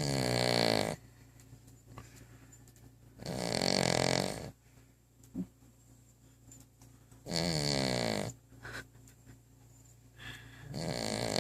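Sleeping dog snoring: four loud snores, each about a second long, coming every three to four seconds, the last one starting near the end.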